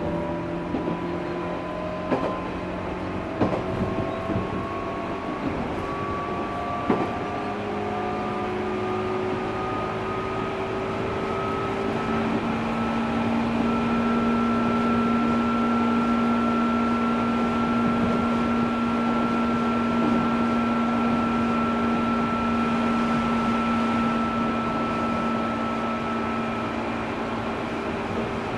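Running sound inside a JR 205-series electric train's motor car: the MT61 traction motors with external cooling fans whine, rising slowly in pitch as the train picks up speed over the first dozen seconds, then holding a steady pitch at speed. A few wheel clicks over rail joints come in the first seven seconds, over a constant rumble.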